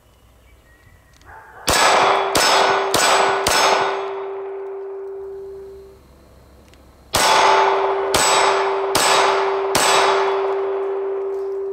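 Glock 19 9mm pistol firing 135-grain Federal Hydra-Shok DEEP: four shots in quick succession, then after a pause four more, each hitting a steel silhouette target that rings on as a steady clang.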